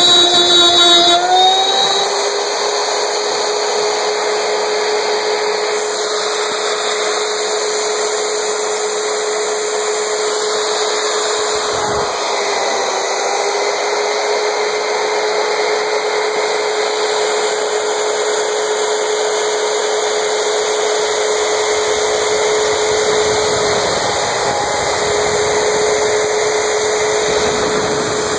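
CNC-driven wood router spinning a 1/4-inch flat-end bit and cutting along the sheet at a 15 IPM feed, with a steady high whine over the hiss of the cut. About a second or two in, the pitch rises a little and the sound gets slightly quieter.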